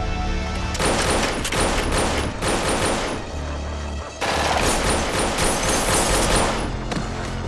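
Two long bursts of automatic gunfire, rapid shots packed close together: the first from about a second in to about three seconds, the second from about four seconds to near the end. Film score music with a steady low drone runs underneath.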